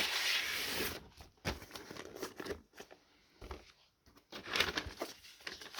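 Paper inner sleeve of a vinyl LP rustling and crinkling as the record is handled, loudest in the first second, then a few short rustles and light knocks.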